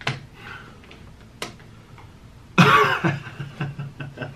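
A man's short breathy laugh: a sudden loud burst trailing off into a few soft chuckles, after a sharp click.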